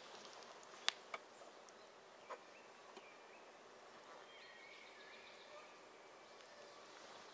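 Quiet forest near silence with faint bird chirps in the middle and a few sharp clicks, the loudest about a second in.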